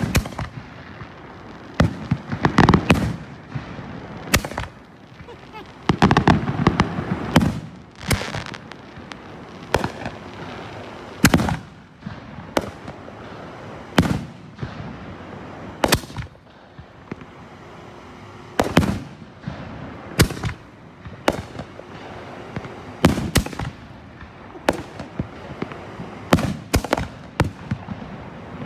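A 36-shot 3-inch firework cake firing shell after shell. Sharp bangs of shells launching and bursting come about one every one to two seconds, some in quick clusters, each followed by a brief rumbling echo.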